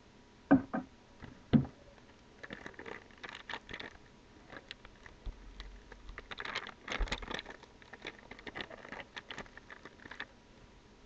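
Two sharp plastic clicks from the charger's plug adapter being handled, then a clear plastic packaging bag crinkling and rustling on and off for several seconds as it is lifted and turned over.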